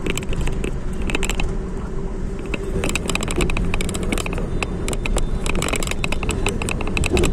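A road vehicle on the move, heard from on board: steady engine and road rumble with a faint steady hum, and short rattling clicks scattered throughout.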